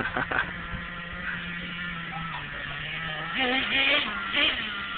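Small nitro engine of an RC monster truck idling steadily, its pitch sagging slightly about halfway through. A louder wavering sound follows for about a second, around three and a half seconds in.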